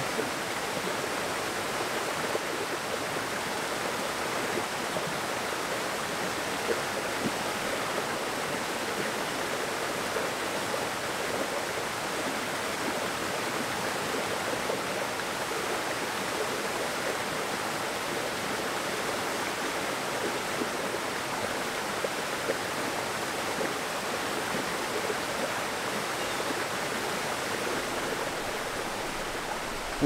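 Small waterfall pouring onto rocks and into its plunge pool: a steady, even rush of falling and splashing water.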